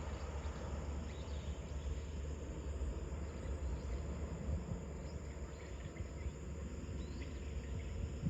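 Steady outdoor ambient noise: a low rumble underneath and a faint, steady high drone of insects.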